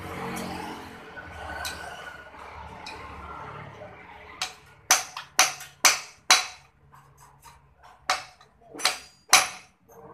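Hammer blows on the metal exhaust fittings of a Honda Supra X 125D motorcycle, each a sharp ringing clang. There are five quick strikes about two a second, then after a short pause three more near the end.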